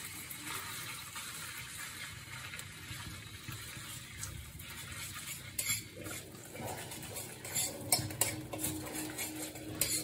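A utensil stirring and scraping in a metal kadai, with scattered clinks against the pan, over a steady sizzle of garlic, ginger and onion frying in oil. The clinks come more often in the second half.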